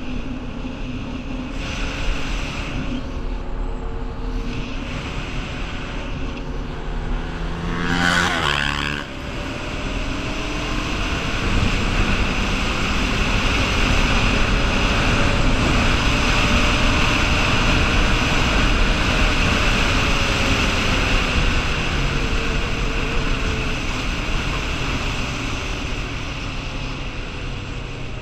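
Honda 420 ATV's single-cylinder engine running under way, revving up sharply about eight seconds in and then pulling steadily at speed, with wind rushing over the microphone.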